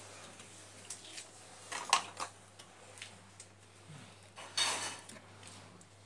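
Scattered metallic clinks and knocks as a small electric motor and its metal fittings are handled in a wooden frame, the loudest about two seconds in, with a short rustling scrape near five seconds. A steady low hum runs underneath.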